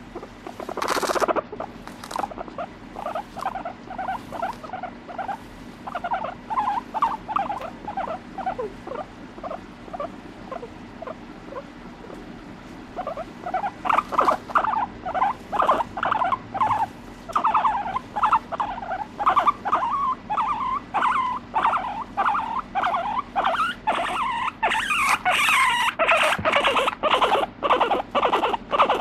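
Abyssinian guinea pig purring or chuttering while being stroked: a long run of short pulsed calls, about two a second, that sound like a soft laughing 'ufufu'. The calls grow louder about halfway through and turn higher and noisier near the end. A brief loud noise comes about a second in.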